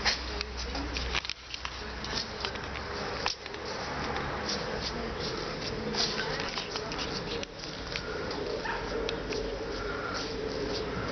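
Outdoor ambience: a steady background noise with indistinct voices and many scattered short clicks.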